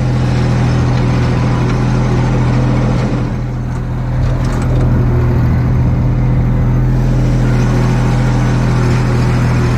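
Stand-on mower's engine running steadily under way, a constant low hum that dips slightly for a moment about three and a half seconds in.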